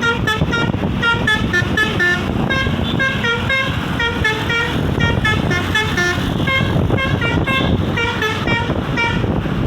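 Basuri V3 'telolet' musical bus horn playing a fast tune of short, high notes, over steady background noise.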